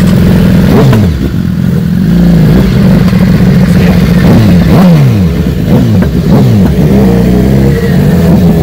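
Sport motorcycle engines idling, revved again and again, each rev rising in pitch and dropping back to idle.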